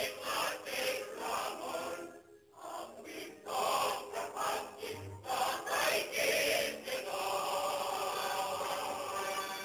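Choir singing a song in praise of Stalin. There is a brief break about two seconds in, and the voices hold long steady notes near the end.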